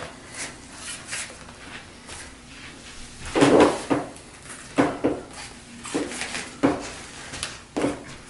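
Road-bike clincher tire bead snapping over the rim wall as it is pushed on by hand. There are about eight sharp snaps at irregular intervals, starting a few seconds in, the first the loudest, with soft rubbing of hands on the rubber before them. The snaps are a good sign that the bead is going into place.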